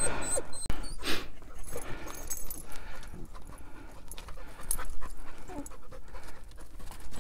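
Miniature Australian Shepherd panting hard as it scrambles up a rock crevice, with short scuffs and clicks on the rock as it climbs.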